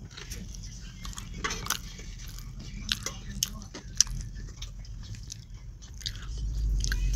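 A person eating by hand from a steel plate: chewing, with scattered small clicks and rustles of roti being torn and fingers working the food on the plate, over a steady low hum.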